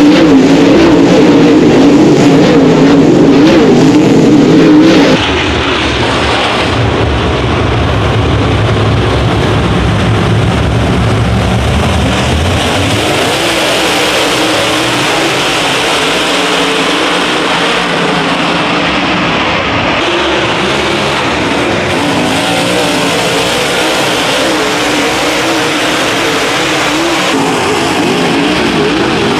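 A pack of dirt late model race cars' V8 engines running hard at racing speed. Loudest and closest for about the first five seconds as the field passes, then it drops suddenly to a steady, blended drone of many engines with the pitch wavering as cars lift and accelerate.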